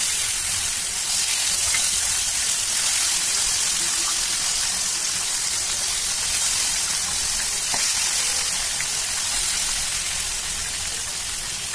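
Whole koi fish frying in hot mustard oil: a loud, steady sizzle, with a few faint ticks, as more fish are laid into the oil one by one.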